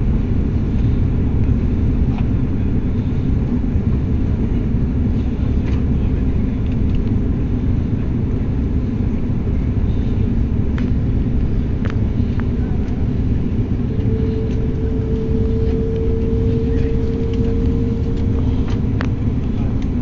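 Steady, loud rumble of airliner cabin noise, engines and airflow heard from inside the cabin. A thin steady tone sounds over it for several seconds past the middle, and there are a few faint clicks.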